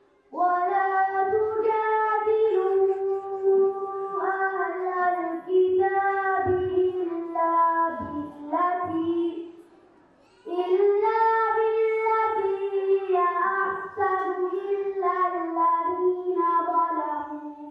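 A girl's voice chanting a melodic Arabic Quran recitation through a microphone, in long held phrases with short pauses about four, eight and ten seconds in.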